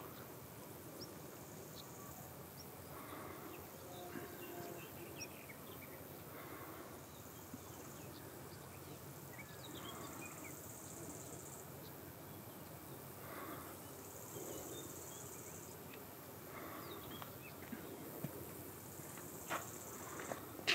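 Faint outdoor ambience: an insect's high buzzing song in bursts of a second or two every few seconds, with scattered short chirps and a few faint knocks near the end.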